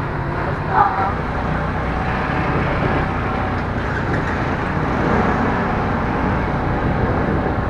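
Steady engine rumble and road noise of a road vehicle on the move, with a short high chirp about a second in.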